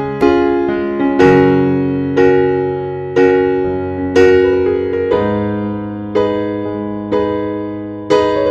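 Background music: slow keyboard music in a piano sound, a note or chord struck about once a second and ringing out before the next.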